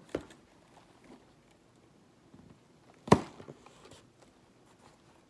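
Cardboard shipping box being pulled open by hand: a sharp click at the start, faint rustles, and one loud short crack of the cardboard about three seconds in.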